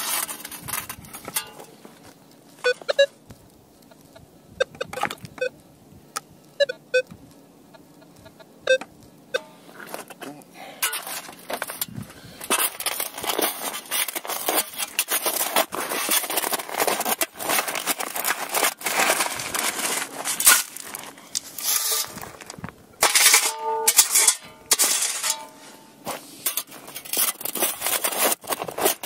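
A perforated metal sand scoop is pushed and stepped into beach gravel and cobbles, grinding and crunching through the stones from about ten seconds in. A metal detector gives short target beeps among scattered clicks in the first ten seconds, and again briefly near the end.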